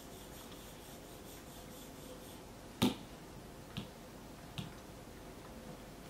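Three sharp taps on a tablet's glass screen, about a second apart, the first one loudest.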